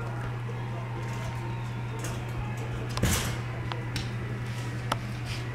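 Miniature Australian Labradoodle puppies scuffling with toys on blankets and tile: a few light clicks and a short rustling scrape about three seconds in, the loudest sound, over a steady low hum.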